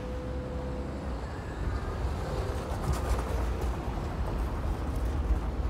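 Audi A6 Quattro sedan driving past through packed snow: engine running and tyres crunching through the snow, growing louder as the car comes close, with crackling around midway.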